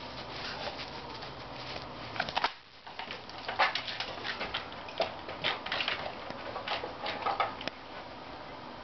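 Dog tugging and scrabbling at a stretched bungee cord tied to a wooden lattice fence: irregular scuffs, scrapes and rattles, with a short lull about two and a half seconds in.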